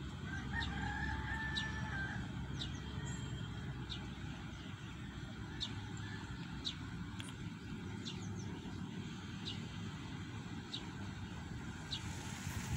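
A rooster crows once, starting about half a second in and lasting about a second and a half. Short high chirps repeat every second or less over a steady low background rumble.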